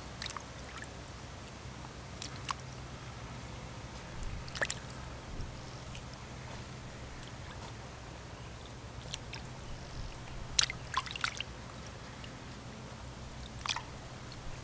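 Water in a steel basin splashing and dripping as plucked quail are handled and rinsed, with scattered small splashes and drips, a cluster of them a little past the middle, over a faint steady low hum.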